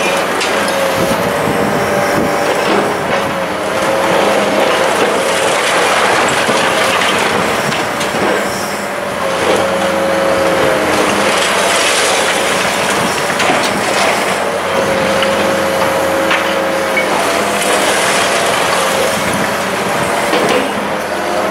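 High-reach demolition excavator's hydraulic crusher jaws breaking up the concrete floors of an apartment block: a continuous loud crunching and clattering of concrete and falling rubble. Squealing tones, each about a second long, come through it again and again.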